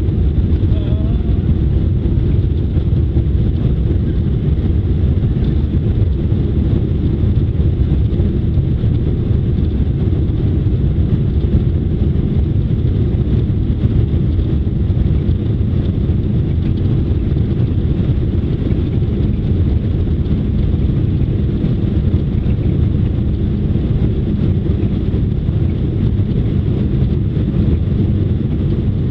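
London Underground train running, a steady low rumble of wheels and motors that stays even throughout.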